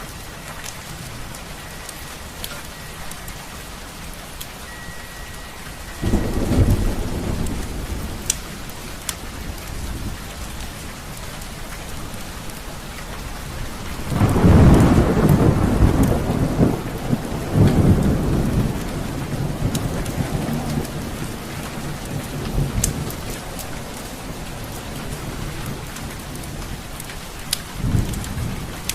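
Steady rain with thunder rolling in: a rumble about six seconds in, a longer, louder roll about halfway through, and a short one near the end. Faint wood-fire crackles sound over the rain.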